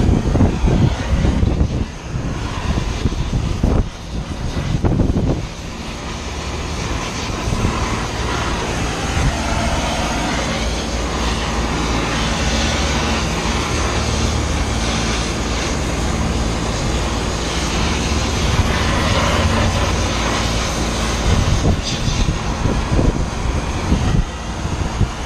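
Oxy-acetylene torch with a rosebud tip burning with a steady, loud hiss as it heats the brazed copper line joints of an old compressor to unsweat them. Wind buffets the microphone in the first few seconds and again near the end, and a faint steady low hum runs underneath.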